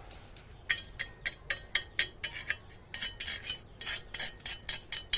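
A quick, uneven series of light metallic clinks, about three to four a second, each ringing briefly: metal striking metal.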